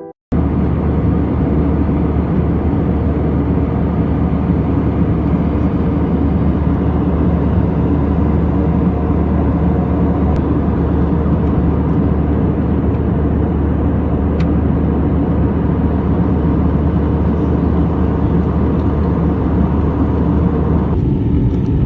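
Steady engine and airflow rumble heard inside the cabin of an Airbus A320 airliner, with a low hum under a broad hiss. Near the end the higher hiss drops away abruptly, leaving the low rumble.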